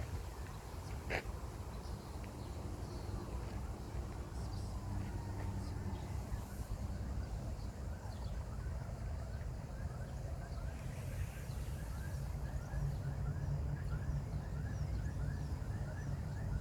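Outdoor ambience: a steady low rumble with small birds chirping here and there. Near the end one bird repeats a short chirp about three times a second.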